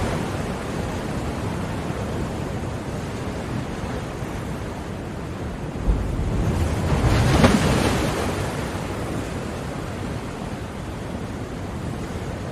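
Ocean waves washing onto a shore: a steady wash of surf with one wave swelling and breaking about halfway through, then easing off.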